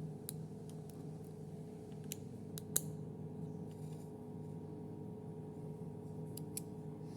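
A small metal tool prising at the spot-welded tab of a button battery on a circuit board: scattered sharp clicks and snaps, about eight in all, the sharpest nearly three seconds in. A steady low hum sits underneath.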